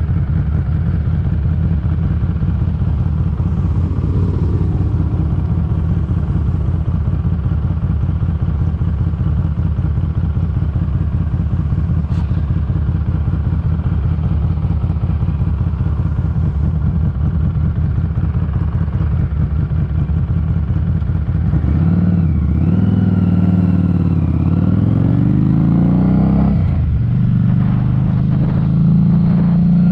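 Harley-Davidson Street 500 V-twin engine running on the road under heavy wind noise on the microphone. About two-thirds of the way in, the engine note comes through clearly as the bike accelerates, its pitch rising, dropping at gear changes and rising again.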